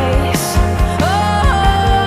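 Background song with a sung melody over a steady drum beat.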